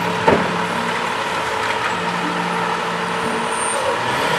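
Garbage truck engine running steadily at low speed, with a single sharp knock about a third of a second in.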